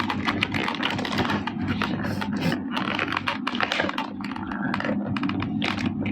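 Plastic toy packaging and small plastic accessory pieces being handled, giving rapid irregular clicking and crinkling.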